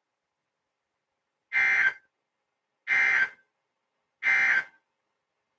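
Three short, identical screeching bursts of Emergency Alert System digital data, about 1.4 seconds apart: the end-of-message code that closes the tornado warning broadcast.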